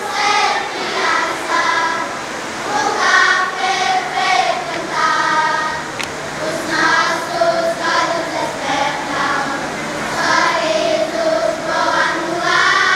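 A children's choir singing a song together, many young voices at once.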